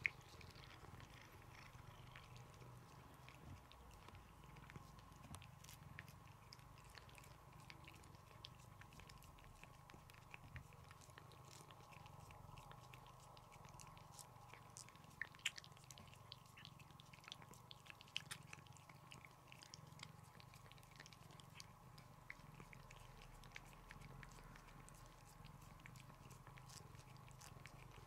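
Calico cat licking paste treat from a squeeze tube: faint, irregular wet licking clicks, with a few sharper smacks, over a low steady hum.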